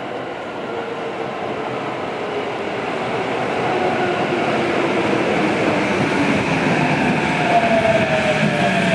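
Tokyo Metro 15000 series subway train pulling into an underground station platform. Its running noise grows steadily louder as it comes alongside, with a whine that drops in pitch as the train slows.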